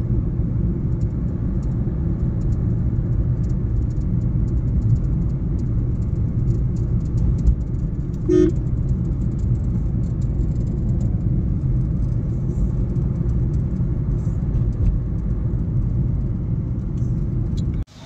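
Car driving on the road: a steady low rumble of engine and tyres, with a short beep, like a horn, about eight seconds in.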